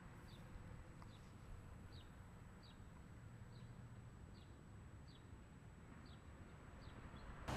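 Faint outdoor quiet with a small bird calling: about ten short, high chirps, each falling slightly in pitch, repeated a little more than once a second.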